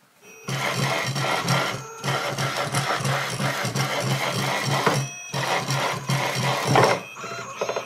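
Closed-loop stepper motor turning the Z-axis ball screw of a home-built CNC router, lifting a heavy dumbbell load: a buzzing machine hum that breaks off briefly about two and five seconds in and fades near the end.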